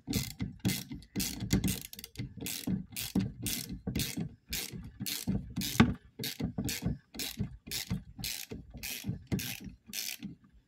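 Half-inch ratcheting wrench clicking as it runs a loosened nut off an old tractor starter, in quick even strokes of about two and a half a second that stop shortly before the end.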